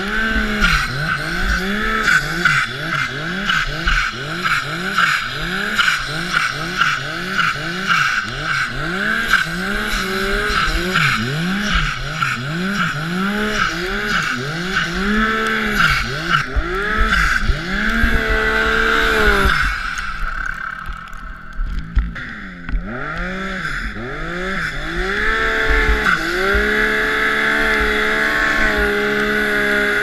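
Turbocharged 2015 Yamaha Viper snowmobile's four-stroke three-cylinder engine, fitted with an MPI 190 turbo kit, revving up and down about once a second over a steady high whine while the sled ploughs through deep powder. About two-thirds through the revs drop away briefly, then the engine climbs back and holds a steady higher speed near the end.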